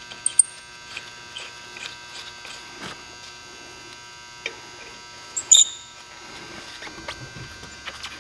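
A steady electrical hum with scattered light metallic clicks and taps. Two sharp, ringing metal clinks come just after the start and two more about five and a half seconds in.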